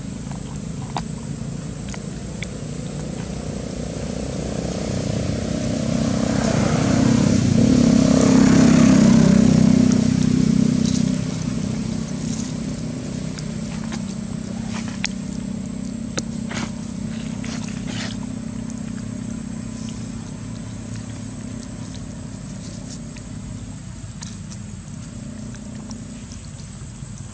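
A motor vehicle's engine drones steadily, swelling as it passes close about eight to ten seconds in and then slowly fading away. A few faint clicks and taps sound over it.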